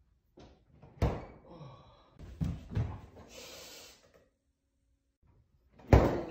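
Refrigerator door handling: a thud about a second in, rustling and a short hiss, then the refrigerator door slams shut near the end, the loudest sound.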